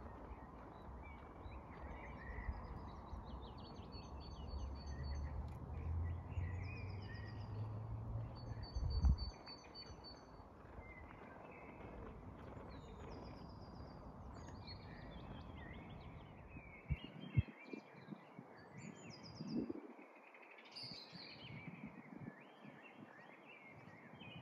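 Small songbirds singing, with repeated high chirps and short trills throughout. A low rumble underlies the first nine seconds and then stops.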